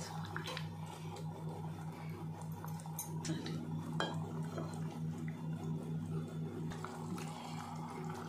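A white ceramic bowl clinking against the rim of a metal cooking pot as raw eggs are slid from it into simmering curry gravy: several short sharp clicks over a steady low hum.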